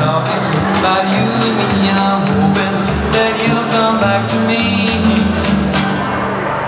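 Recorded song with singing over a steady beat.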